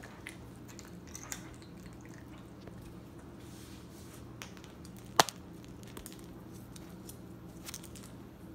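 Small ice cubes clicking and tapping on a hard floor as a raccoon handles, mouths and bats them, with scattered light ticks and one sharp, loud click about five seconds in. A steady low hum runs underneath.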